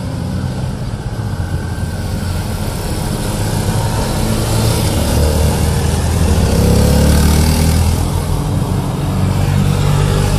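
Small motorcycles riding past, engines running and growing louder as a bike passes close about six to seven seconds in.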